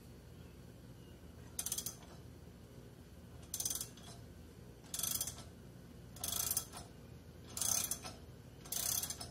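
A ratchet wrench clicks in six short runs, about one every second and a half, as it turns the forcing bolt of a three-jaw puller. The puller is drawing the stuck primary drive clutch off its shaft.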